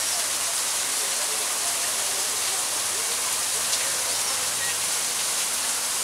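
Small waterfall pouring from a rock grotto into a pond: a steady hiss of falling water.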